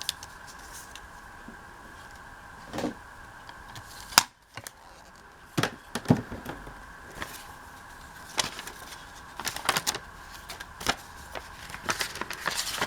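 Paper being handled and cut during a craft project, with scattered sharp clicks and taps, the loudest about four seconds in, over a faint steady background hum.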